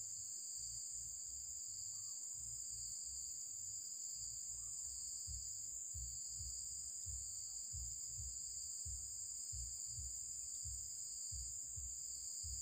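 Steady, high-pitched drone of an insect chorus that never lets up, with a faint irregular low rumble underneath.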